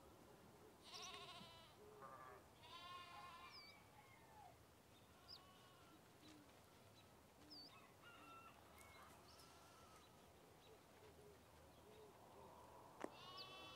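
Faint, wavering bleats of farm animals: the clearest about a second in, around three seconds in and near the end. Small chirps fall between them, and there is one sharp tap near the end.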